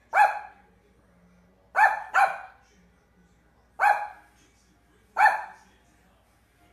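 A small terrier barking: five sharp yaps, a single, a quick pair, then two singles about a second and a half apart.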